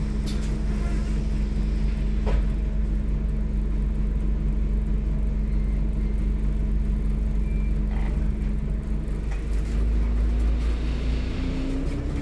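Alexander Dennis Enviro 400 MMC bus engine running steadily at low revs, heard from inside the passenger cabin, with a single click a couple of seconds in. Near the end the low rumble grows and a rising whine comes in as the bus pulls away.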